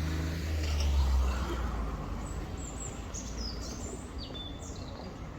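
A motor vehicle's engine rumbles low and passes in the first two seconds, then a songbird gives a run of quick high chirps stepping down in pitch, over steady street background noise.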